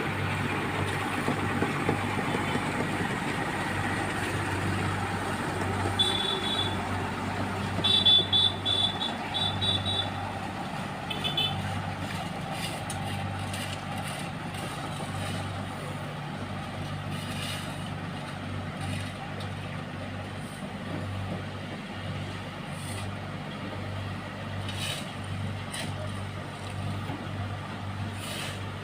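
Heavy diesel engines of road-construction vehicles running steadily, with a vehicle's high warning beeper sounding in short runs of beeps between about six and eleven seconds in.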